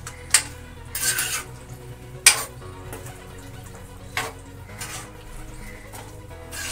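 Steel ladle stirring and scraping diced potatoes and carrots in masala around a kadhai, with several sharp metal-on-metal clinks, the loudest a little over two seconds in.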